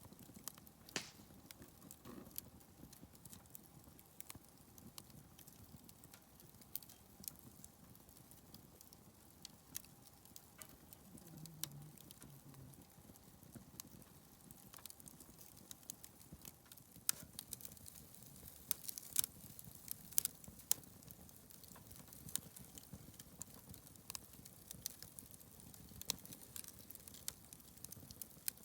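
Wood campfire crackling, with sharp, irregular pops and snaps over a low hiss, coming thicker in the second half.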